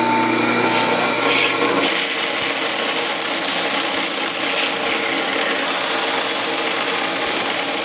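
Vintage ship saw (a huge bandsaw with a rotating cutting band) running with a steady hum, and from about two seconds in its blade cutting through a thick timber block with a steady, even hiss of sawing.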